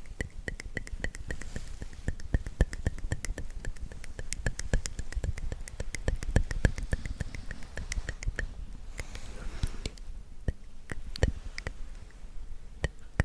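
Close-miked ASMR mouth sounds: a rapid, irregular run of wet clicks and smacks, several a second, with a brief breathy whisper about nine seconds in.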